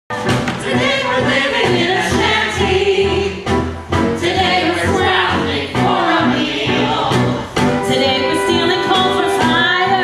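An ensemble of singers singing a Broadway show tune in chorus over instrumental accompaniment.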